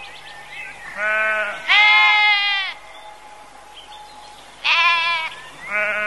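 Sheep bleating: a short bleat about a second in runs straight into a longer, louder one, then after a pause two more bleats come near the end.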